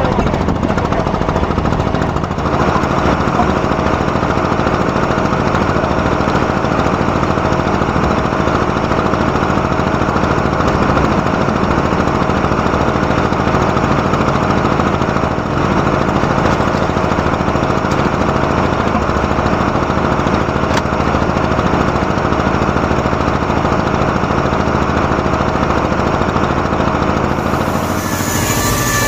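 A boat's engine running steadily and loudly, heard on deck.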